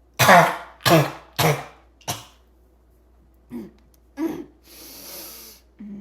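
A person's barking, choking cough: a run of four loud coughs about half a second apart, each weaker than the last, then two weaker coughs and a long breath.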